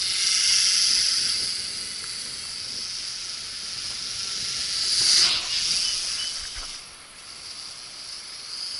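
Small toy quadcopter's propellers whining high-pitched as it flies in strong wind. The whine varies in loudness, swelling with a falling sweep as it passes close about five seconds in, then fading.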